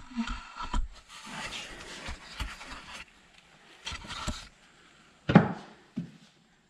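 Handling noises as parts are shifted around in an engine bay: rubbing and scraping with scattered light clicks, then a louder knock about five seconds in.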